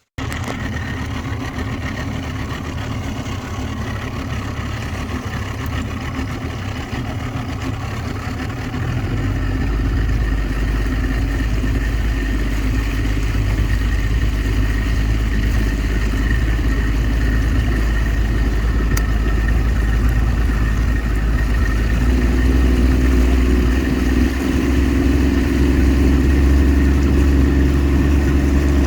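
An engine running steadily, its low hum growing stronger about nine seconds in and again a little past twenty seconds.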